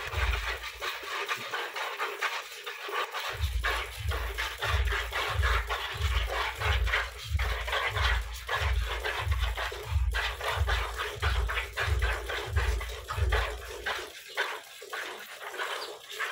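Hand milking a desi cow into a plastic bucket: streams of milk squirt into the bucket in a steady rhythm of about two strokes a second, with a short break a second or so in and another near the end.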